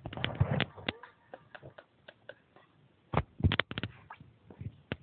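Irregular light taps and clicks of small hard objects being handled, a few in the first second and a quick cluster of them a little after three seconds in.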